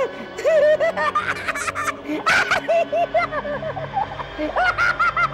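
A man cackling with laughter in runs of short, quick 'ha' bursts, higher-pitched toward the end.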